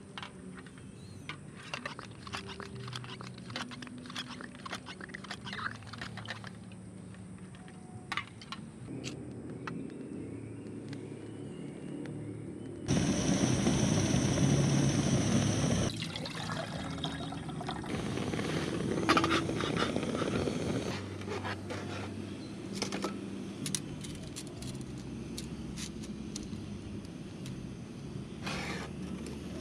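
Pump of a liquid-fuel camp stove's fuel bottle being worked by hand: a run of small clicks and plastic rattles, then about three seconds of loud hissing as pressurised fuel or air is let through toward the stove, followed by softer handling clicks.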